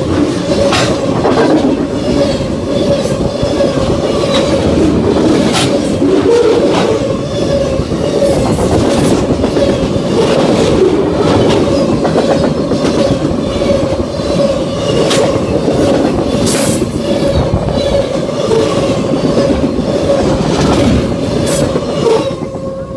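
Freight cars of a fast CSX freight train rolling past close by: a loud, steady wheel-on-rail rumble with a steady high ringing tone and sharp clacks now and then. The last car passes near the end and the sound drops away.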